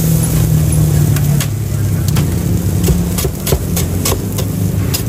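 Cleaver chopping on a chopping block: a quick run of sharp knocks, about three a second, starting about a second and a half in. Under it is a steady low engine-like hum.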